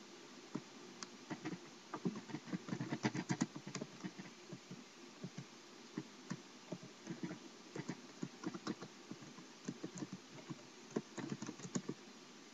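Typing on a computer keyboard: uneven runs of key clicks with short pauses between them, busiest about two to four seconds in and again near the end.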